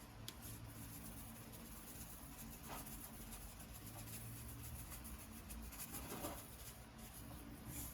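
Faint scratchy rustling and a few light clicks as Tony's Creole seasoning is shaken from its container over a bowl of flour.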